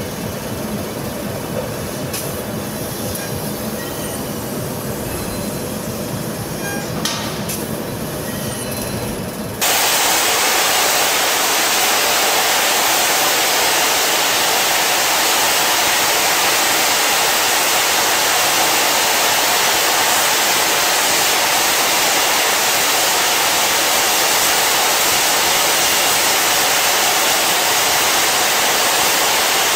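For about the first ten seconds, a low, steady machine rumble with a few faint clicks from CNC laser cutting machines cutting steel sheet. Then it cuts abruptly to the louder, steady hiss of an oxy-fuel cutting torch's flame and oxygen jet burning through a thick steel block.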